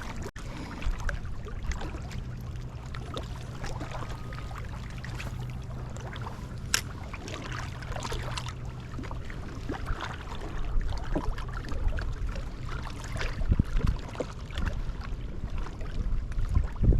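Wind buffeting the microphone in a low, steady rumble that grows gustier in the second half, with scattered small clicks and one sharp click about seven seconds in.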